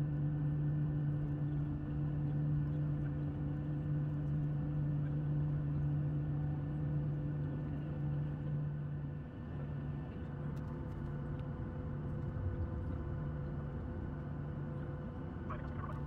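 Steady cabin drone inside a Boeing 737-700 on the ground, engine and air-system hum with several steady tones. The strongest low tone breaks up and the level dips slightly about nine seconds in.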